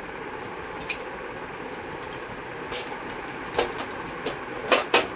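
A handful of short, sharp clicks and knocks at irregular intervals, several close together near the end, over a steady background hum.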